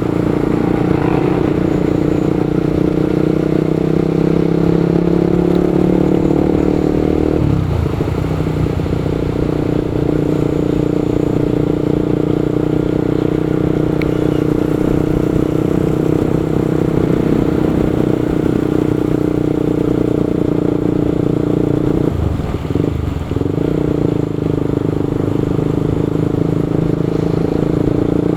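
Motorcycle engine running at a steady speed while riding, under traffic and wind noise. Its note dips briefly about a quarter of the way in, and twice in quick succession near the end.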